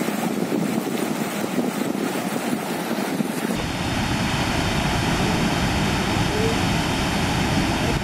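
Orkhon River water rushing over rocks, then, after a sudden cut about three and a half seconds in, the fuller and deeper steady rush of the Ulaan Tsutgalan waterfall.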